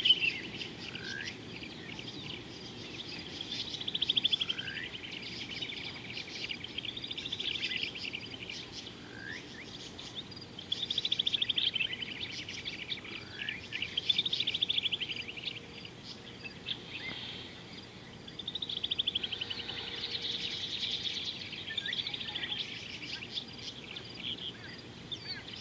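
Birds calling: one bird repeats a trilled phrase that rises and falls, about every three to four seconds, the first few each followed by a short rising whistle, with quick chirps from other birds throughout.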